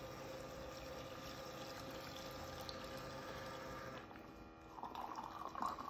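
Terapump TRFA01 battery-powered fuel transfer pump running with a faint steady hum as gasoline pours through its hose into a mower's fuel tank. It stops about four seconds in, when its auto shut-off trips.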